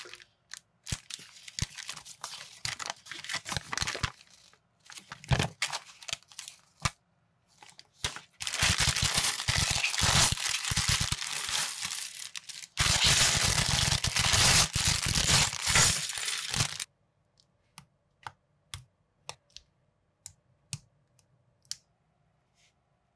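Thin plastic parts bags crinkling, then two long, loud stretches of plastic being torn and rustled open in the middle. After that, a scattering of small sharp clicks from plastic building parts and minifigure pieces being fitted together.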